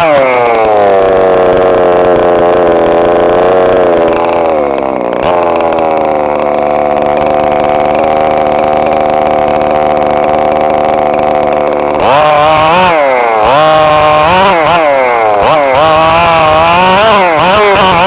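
Small engine of a radio-controlled car running loud: the revs fall away at the start, hold fairly steady for several seconds, then rise and fall rapidly over and over in the last third as it is driven.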